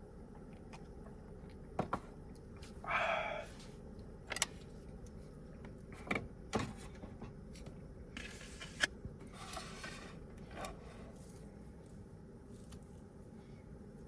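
Scattered small clicks and knocks with a few short rustling or scraping sounds, as of small objects being handled.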